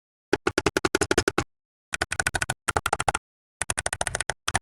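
Typing on an Akko Fun 60 Pro magnetic-switch keyboard: quick runs of key clicks, about ten a second, in four bursts with short pauses between.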